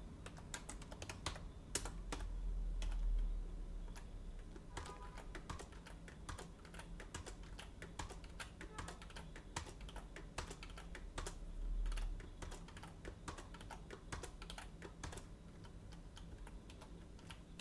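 Typing on a computer keyboard: irregular, faint key clicks. A low hum sits underneath and swells briefly twice.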